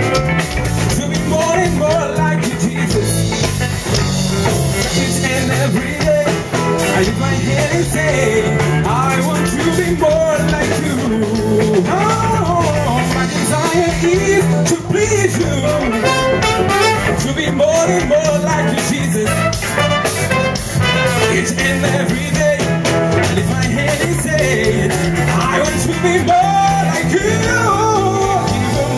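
Band playing an upbeat song with a horn section of saxophone, trumpet and trombone, electric guitar and keyboards over a steady bass line, with a voice singing the melody.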